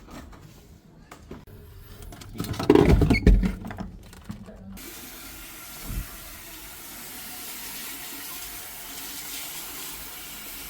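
Some knocks and thumps of handling, the loudest about three seconds in, then water starts running steadily, as from a tap, a little before halfway and keeps on.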